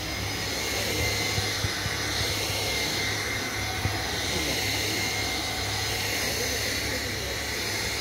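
Cordless stick vacuum cleaner running steadily, a rushing airflow with a high motor whine, its floor head pushed back and forth over a floor mat.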